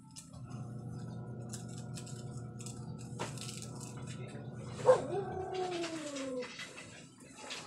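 A dog howling: a long, steady, low howl, then a sharp knock about five seconds in and a second howl that slowly falls in pitch.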